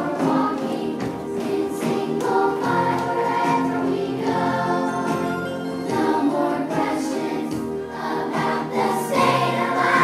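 A large group of schoolchildren singing a song together as a choir over music, a little louder near the end.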